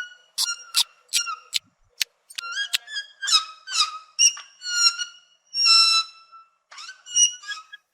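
Sloth giving a quick series of short, high-pitched squeaking calls, several gliding up or down in pitch, with one longer held call a little past the middle.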